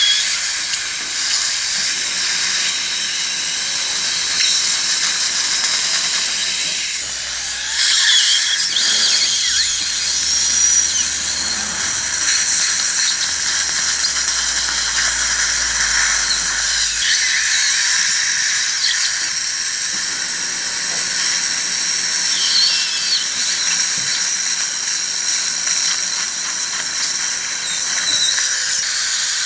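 Surgical suction tip hissing steadily in the mouth while a dental implant handpiece whines as it drills the implant site in the upper jaw.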